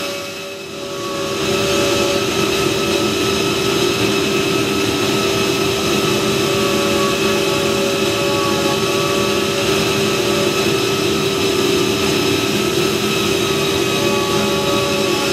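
Steady running noise of automated woodworking machinery: a continuous whir with several constant whining tones over it, dipping briefly just after the start.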